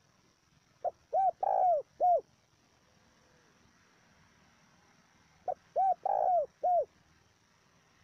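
Spotted dove cooing: two phrases about four and a half seconds apart, each a short note followed by three arched coos, the third note the longest and loudest.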